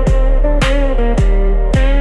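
Instrumental music: sustained guitar over a steady, low, falling-pitch beat about twice a second, with no singing.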